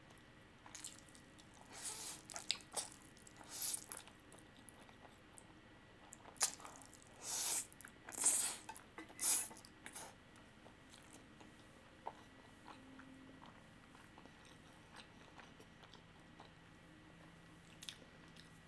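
Close-miked eating sounds of a person taking a last mouthful of spicy nuclear fire noodles: slurping and chewing in irregular short bursts, busiest in the first half, then fading to faint mouth sounds.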